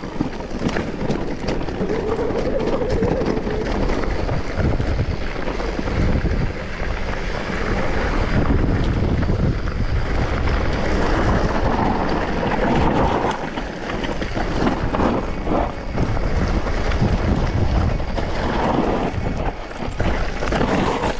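Mountain bike riding down a dry, rough trail: tyres on dirt and stones, and the bike clattering over bumps in many short knocks, with wind rumbling on the microphone.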